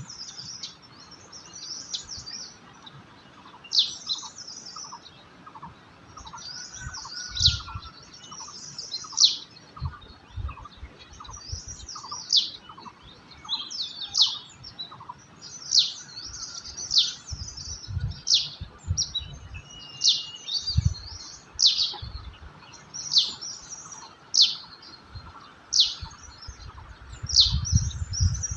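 Birds chirping continuously: many short, high notes, each dropping quickly in pitch, repeated every half second or so. A few low thuds come through now and then, loudest near the end.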